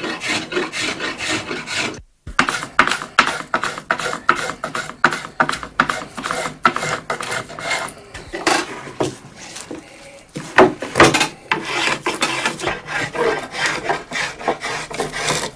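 Spokeshave shaving an ash hurley by hand, a quick run of short scraping strokes taking the saw marks off the wood. There is a brief break about two seconds in.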